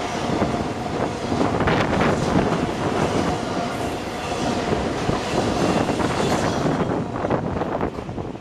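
BNSF double-stack intermodal freight train passing close at speed: steel wheels rumbling and clattering over the rail joints, with a faint steady wheel squeal through most of it. The noise drops away suddenly at the very end as the last car clears.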